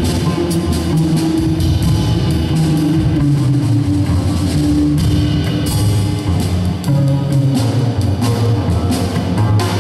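Live jazz from a double bass and a Pearl drum kit: the upright bass plucked in a line of low notes, with the drummer playing sticks on drums and cymbals.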